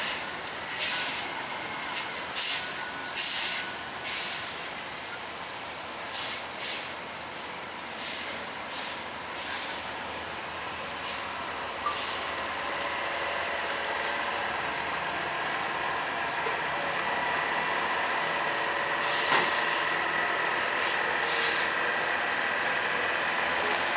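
Heavy trucks running, with repeated short air-brake hisses: about one a second at first, then two more later. Under them is a steady engine note and a thin, constant high whine.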